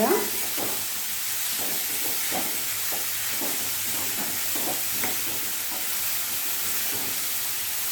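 Bottle gourd pieces frying in oil in a pan with a steady sizzle, while a utensil stirs them, scraping and knocking against the pan about twice a second.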